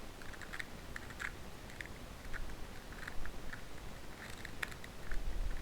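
Light, irregular plastic clicking from a broken 2x2 puzzle cube being handled and turned, its pieces knocking and sliding against each other.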